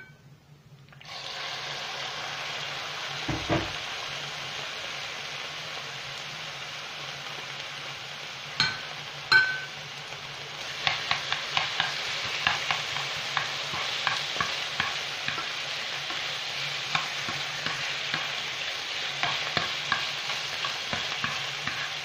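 Diced chicken dropped into hot oil in a nonstick frying pan, sizzling steadily from about a second in. A couple of clinks come just before halfway. From about halfway, a metal spoon stirring the pieces adds quick scraping clicks against the pan.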